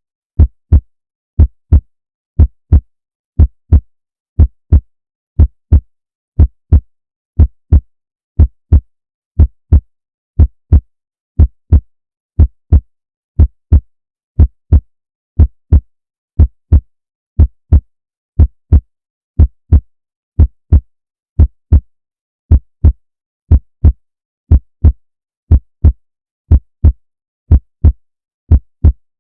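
A heartbeat: a steady lub-dub double thump about once a second, around 60 beats a minute, deep and low.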